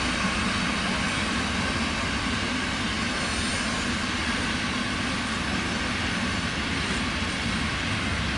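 A train of vintage passenger coaches rolling past, with a steady, even noise of wheels running on the rails.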